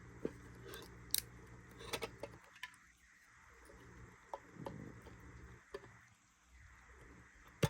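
Faint handling of a small metal Pokémon card mini tin: a few scattered light clicks and taps.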